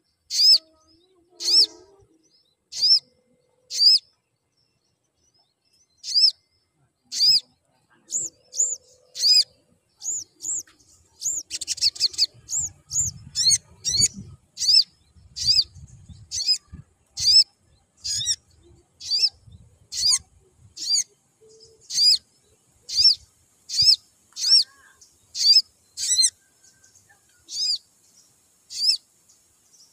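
Male olive-backed sunbird (sogon) giving a long series of short, high, sweeping chirps, mostly about one a second. It quickens into a closer run in the middle, where a faint low rumble runs under the calls.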